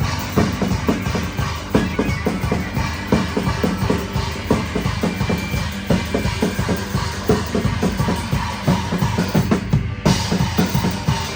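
A band playing live, driven by a busy drum kit with kick drum and snare hits several times a second under the other instruments. There is a brief drop in the high end just before the end.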